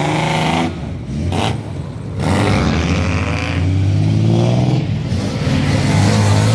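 Engines of several bosozoku-style modified 1970s Japanese cars revving as the cars drive out one after another, the pitch rising and falling with each blip of the throttle. There is a short lull about two seconds in before the next car revs up.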